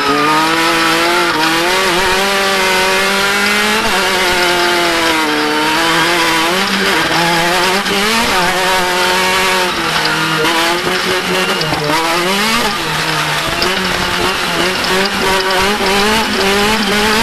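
Off-road race vehicle's engine running hard at speed, its pitch rising and falling again and again over a steady drone.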